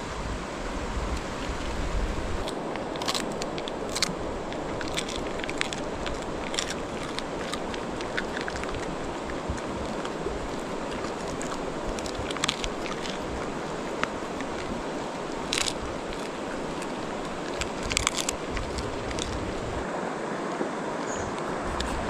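Mountain stream rushing steadily, with scattered short clicks and crunches on top.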